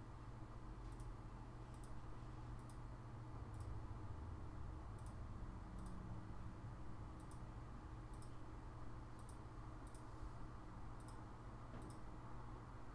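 Computer mouse clicking: faint single clicks, irregularly about one every half second to a second, over a low steady hum.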